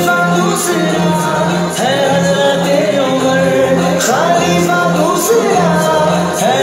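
Islamic devotional song: voices singing over a steady low beat that repeats about twice a second.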